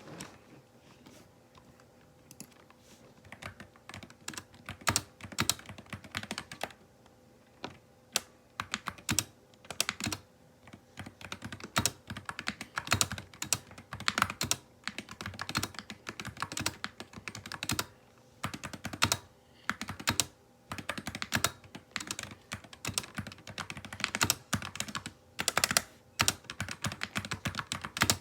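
Typing on a SteelSeries Apex Pro TKL mechanical keyboard fitted with HyperX Pudding keycaps: fast runs of key clacks in bursts with short pauses, starting a few seconds in.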